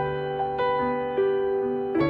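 Background piano music: a slow melody of sustained notes, a new note starting every half second or so.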